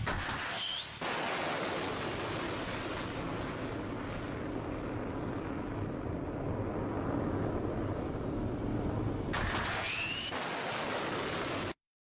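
Surface-to-air missile launches from an S-300 system: a steady rushing roar of rocket motor exhaust, with a brief rising whistle about a second in and again near the end. The sound cuts off abruptly just before the end.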